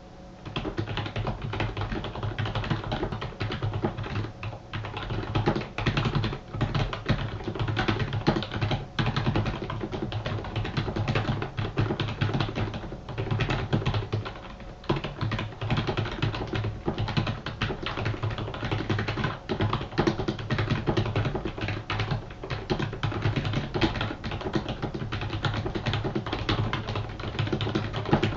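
QSENN GP-K8000U computer keyboard being typed on continuously: a fast, dense run of key clicks that starts about half a second in, with a few brief pauses.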